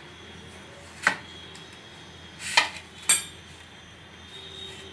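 Ceramic plate and crockery knocking three times while raw chicken pieces are pressed and turned in flour on the plate by hand: one sharp knock about a second in, then two more close together a little past halfway.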